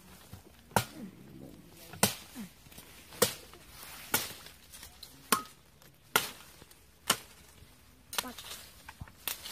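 Repeated chopping strikes: about nine sharp hits, roughly one a second.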